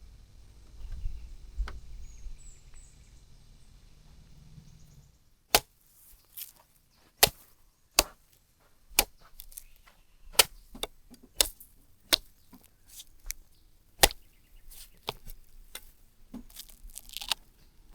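Fresh coconuts being hacked open with a blade: a run of sharp chopping strikes, roughly one a second, starting about five seconds in.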